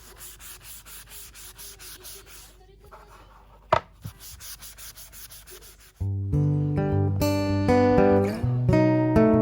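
Wood being sanded in quick, rhythmic rubbing strokes, with one sharp knock about four seconds in. About six seconds in, loud strummed acoustic guitar music begins and dominates.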